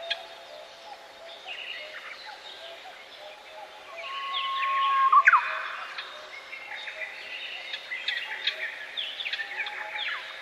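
Several songbirds singing at once, overlapping chirps and trills. The loudest, about five seconds in, is a held whistled note that ends in a quick sweep.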